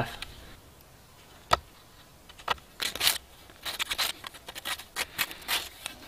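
Knife blade scraping and cutting into the end of a wooden staff, carving a shallow groove around it. A couple of sharp clicks come first, then a quick run of about ten short scraping strokes.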